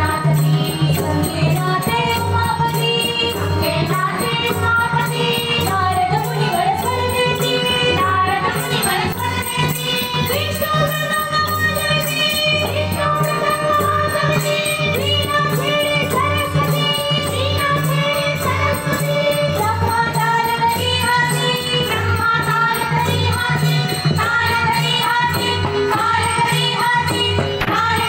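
A women's bhajan group singing together, backed by harmonium, tabla and small hand cymbals that keep a steady beat.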